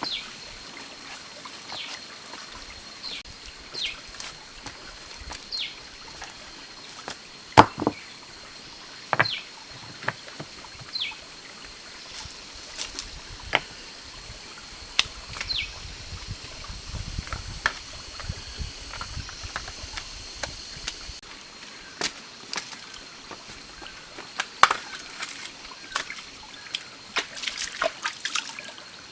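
Water trickling and dripping, with scattered small splashes and clicks. A short falling whistle call repeats every second or few through the first half, then stops.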